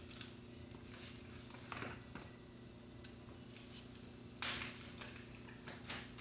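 Faint handling noises from hands working on a mountain bike: a few light clicks and, about four and a half seconds in, a short louder rustle, over a steady low hum.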